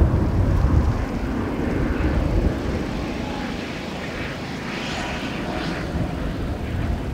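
Airbus A380 in a display flight overhead: the jet noise of its four turbofan engines is a broad, steady rush. Wind buffets the microphone in the first second.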